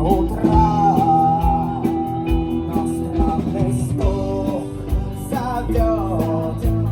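Rock band playing live: a voice singing over electric guitar and drums.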